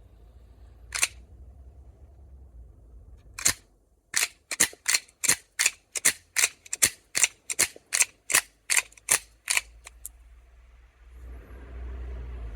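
Gunfire: two single shots a couple of seconds apart, then a rapid even string of about eighteen sharp shots, roughly three a second, ending about ten seconds in.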